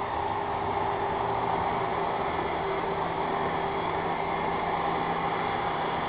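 Nishica robot vacuum cleaner running on a wooden floor: a steady whirring motor hum with a faint hiss, unchanging throughout.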